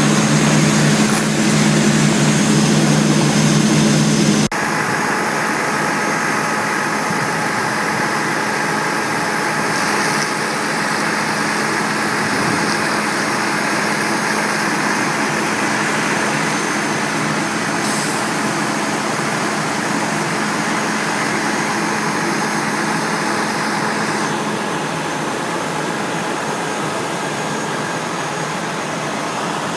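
Heavy engine drone inside a moving emergency vehicle for about four seconds, then, after a cut, a fire engine's diesel engine idling steadily at the fire with a steady whine over it.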